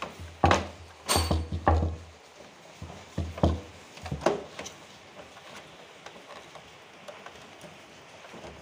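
A handful of sharp knocks and clunks, several close together in the first few seconds, then only faint background noise.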